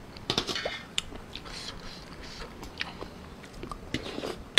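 Close-up eating sounds: wet chewing of blood cockles and rice noodles in short, sharp bits, with a slurp of noodles near the end.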